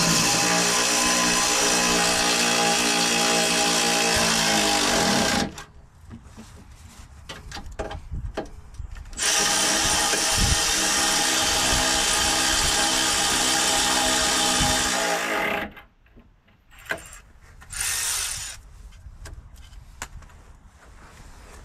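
Small cordless power tool running on a fastener in two steady runs of about five to six seconds each, then a brief third burst near the end, with light clicks and knocks in the gaps.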